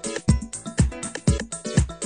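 Background music with a steady beat of about two low thumps a second and short plucked-sounding notes.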